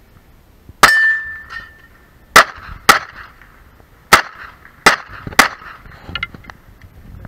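Six pistol shots at an uneven pace, including two quick pairs about half a second apart. The first shot is followed by a brief ringing tone lasting about a second.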